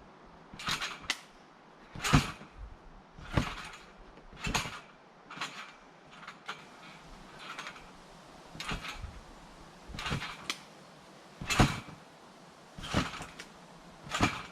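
Backyard spring trampoline being bounced on in a steady rhythm. Each landing gives a short thump with a creak, about one every second and a quarter.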